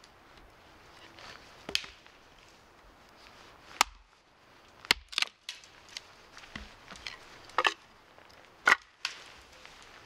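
Axe chopping wood: about six sharp strikes at uneven intervals.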